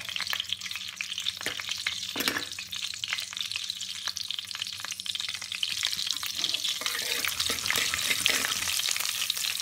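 Cumin seeds sizzling and crackling in hot desi ghee in a kadhai as the tadka starts, with a steel spoon stirring them. The crackle grows a little louder in the second half.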